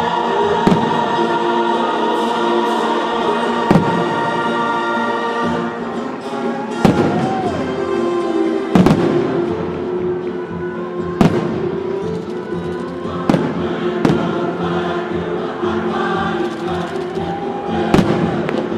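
Fireworks bursting with about eight sharp bangs spaced one to three seconds apart, over choral music with long held chords.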